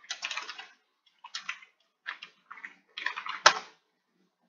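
Computer keyboard typing in short bursts of keystrokes, with one sharp, louder keystroke about three and a half seconds in.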